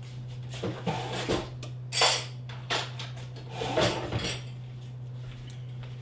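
Metal kitchen utensils clinking and scraping against a stainless steel mixing bowl in a handful of separate knocks, over a steady low hum.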